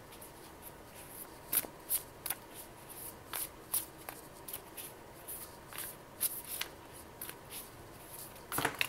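Tarot cards being shuffled by hand off to the side: soft, irregular clicks and rustles, two or three a second.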